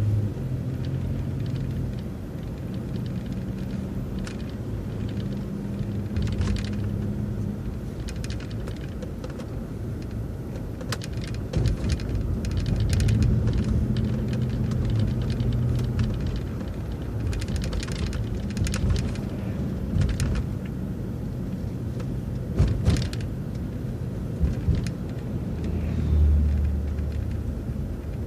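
City transit bus driving, heard from inside: steady engine and road rumble whose engine tone rises and falls with speed, with scattered sharp rattles and clicks.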